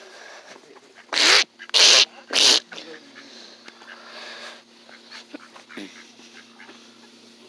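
An animal giving three short, loud, harsh calls in quick succession, about a second in.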